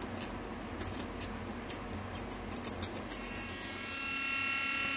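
Dremel-type rotary tool working the casting flashing on a zinc diecast car body: scratchy ticking of the bit against the metal, then a steady high motor whine from about three seconds in.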